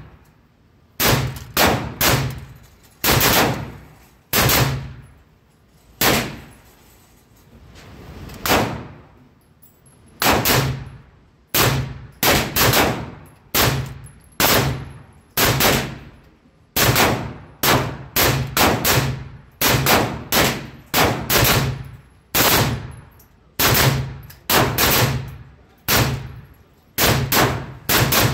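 Panzer Arms AR-57 ULT firing 5.7×28mm rounds from a binary trigger, about thirty-five sharp shots, many in quick pairs a fraction of a second apart. Each shot rings briefly off the walls of an indoor range booth.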